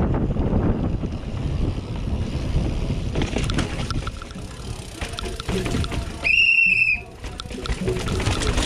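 Mountain bike descending a rocky downhill course, heard on a bike-mounted camera: wind buffeting the microphone and the rattle and rumble of tyres and frame over rough rock. About six seconds in, a single high squeal rings out for under a second while the riding noise briefly drops.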